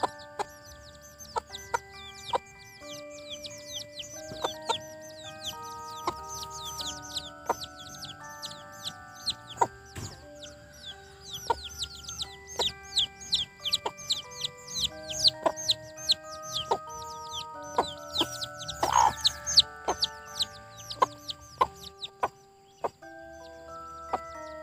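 Chicks peeping constantly in short, high, falling calls while a foraging hen clucks now and then, over background music of held notes.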